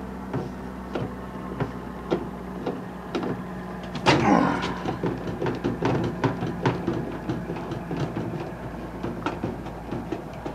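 Screwdriver working on a microwave oven's sheet-metal casing: scattered small metal clicks and scrapes, with one louder metal scrape that falls in pitch about four seconds in.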